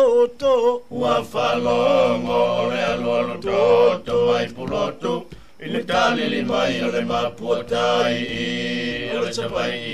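A group of Samoan men singing a narrative song (pese) in Samoan in a chant-like style. A single voice leads at first, and more voices join about a second in, with a brief break in the middle.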